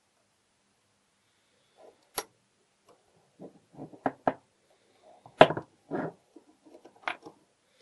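Irregular metal clicks and knocks of a Glutz tubular-frame mortise lock's parts being handled and fitted into the open lock case, the loudest knock about five and a half seconds in.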